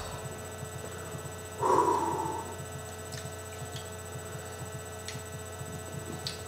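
Steady electrical hum, with a brief pitched vocal-like sound about a second and a half in and a few faint light clicks.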